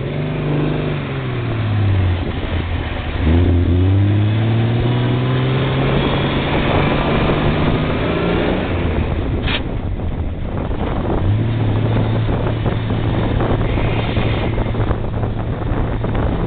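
Ford rat rod's engine under way: it revs up and eases off, pulls up again a few seconds in and holds, then settles into a steady drone through the second half, over a constant rush of road and wind noise.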